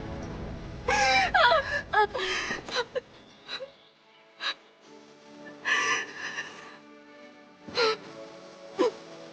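A young woman sobbing and wailing, then catching her breath in shaky gasps, over soft sustained background music.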